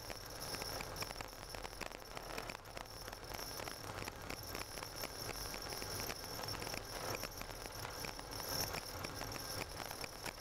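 Car driving on a snow-covered road, heard from inside: a steady crackling hiss from the tyres on the snow over a low hum.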